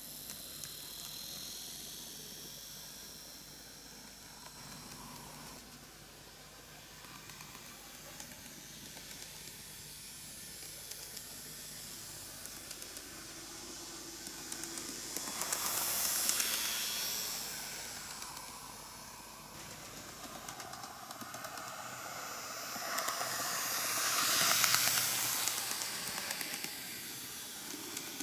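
KATO N-gauge EF81 300 model electric locomotive running light on model track: a thin, steady hiss of its small motor and metal wheels on the rails. The sound grows louder twice, about halfway through and more strongly near the end.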